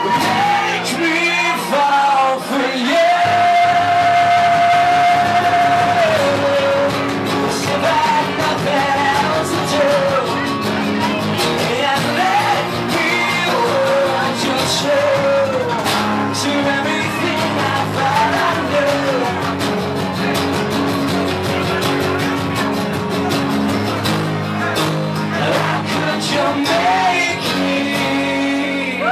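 Live rock band playing, with a man singing over acoustic and electric guitars and steady percussive hits; a long held note sounds about three seconds in.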